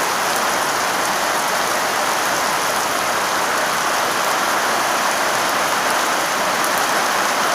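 Heavy rain falling steadily, a dense even hiss of drops pelting down.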